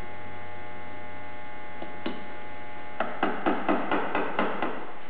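Light metal-on-metal knocks as the back gear assembly of a Bridgeport 2J variable-speed head is worked into its cast housing to line it up with the locating tabs. There is one click about two seconds in, then a quick run of about eight knocks near the end, all over a steady electrical hum.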